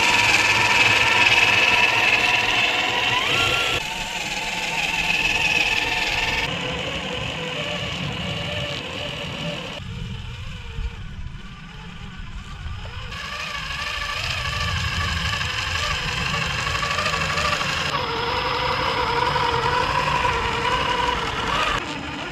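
Electric motor and gearbox of a 1/10-scale Traxxas TRX-4 RC crawler on Traxx tracks whining as it drives, the pitch wavering with the throttle. The sound changes abruptly several times.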